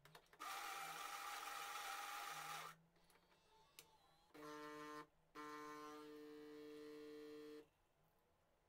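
Philips 5400 series bean-to-cup espresso machine working through a brew cycle in sped-up playback. First comes a grinder-like whirr for about two seconds, then the pump hums in a short spell and a longer one of about two seconds.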